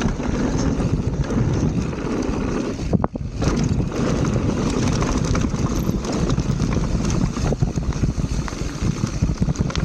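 Wind rushing over an action camera's microphone during a fast mountain bike descent, with the bike rattling over the dirt trail. The sound drops out briefly about three seconds in, then there is a sharp knock.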